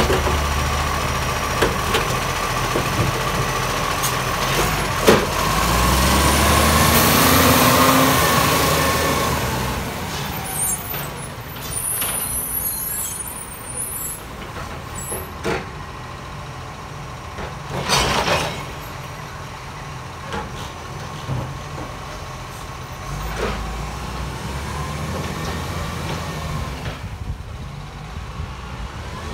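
Acco side-loader garbage truck's diesel engine running and revving up as the truck pulls away, with a steady whine early on and a few short sharp hisses, growing fainter in the second half as it moves off.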